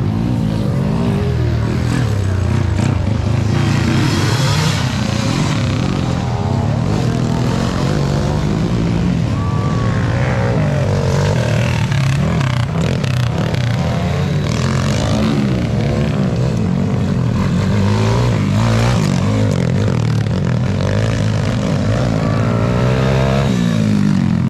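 Motocross dirt bike engines revving hard and easing off again and again as the bikes ride the dirt track, several engines overlapping at different pitches.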